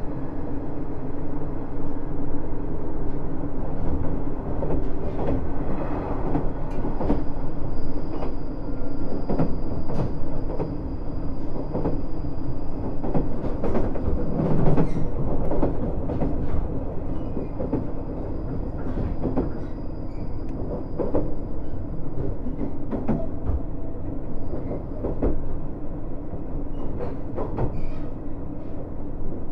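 KiHa 110 series diesel railcar running, heard from inside the car: a steady diesel engine hum under rolling noise, with repeated sharp clicks of wheels over rail joints and a louder low thump about halfway through.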